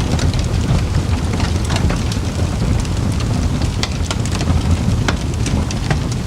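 Campfire burning, with frequent irregular crackles and sharp pops over a steady low rumble.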